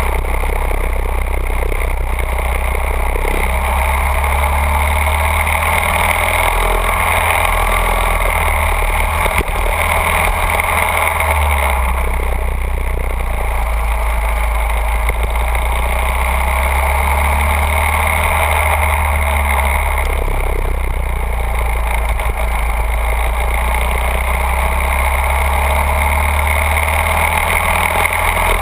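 Go-kart engine running at speed, heard from a camera mounted on a kart, its pitch rising and falling without a break.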